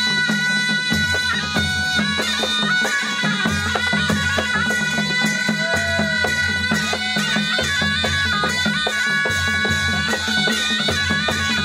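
Nepali panche baja band playing a folk dance tune: a sanai (shawm) carries a sustained, reedy melody over quick dholaki and damaha drum beats.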